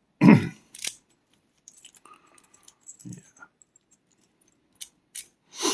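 Small metal clinks and knocks from a Euro profile cylinder lock being handled: one sharp knock just after the start, a few light clicks through the middle, and a short clattering near the end.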